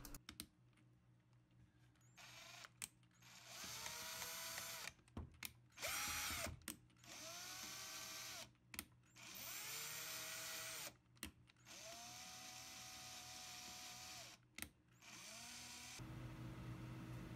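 Cordless drill turning the input shaft of a 3D-printed cycloidal gearbox in a series of short runs. At each start its motor whine rises in pitch as it spins up, then holds steady.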